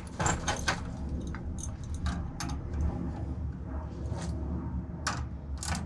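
Scattered clicks and light knocks from hand tools at work on an air handler during an ECM blower motor swap, over a steady low hum. Near the end a ratchet wrench starts turning in quick, even clicks.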